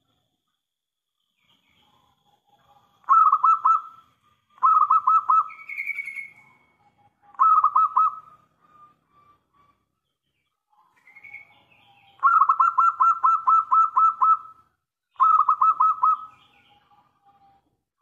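Zebra dove (perkutut) singing: five phrases of rapid, staccato cooing notes, the fourth and longest running about two seconds.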